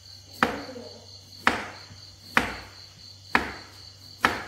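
A large kitchen knife chopping through a potato onto a round wooden chopping board, five sharp chops about one a second.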